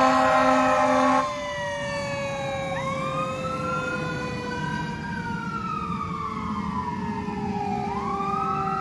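Fire engine air horn blaring until about a second in, then the engine's wail siren rising and falling twice while a lower siren tone slowly winds down.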